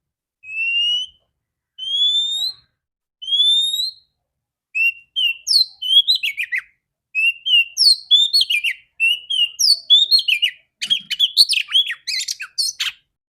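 Female oriental magpie-robin singing. A few slow, clear rising whistles are followed, from about five seconds in, by a faster run of varied chirps and down-slurred notes.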